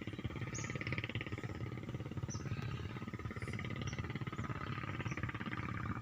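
Wind buffeting the microphone in a steady low rumble, with a bird's short high chirps about once a second over it.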